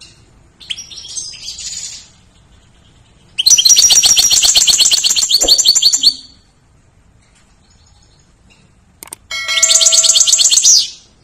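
European goldfinch singing: a short soft twitter near the start, then two loud phrases of rapid, high repeated twittering notes, the first about three seconds long and the second near the end.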